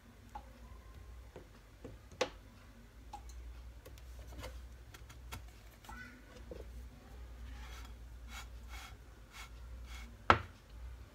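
Light clicks and knocks of a silicone spatula and a nonstick frying pan being handled on a glass-ceramic hob, the sharpest knock about two seconds in and a louder one about ten seconds in, over a low steady hum.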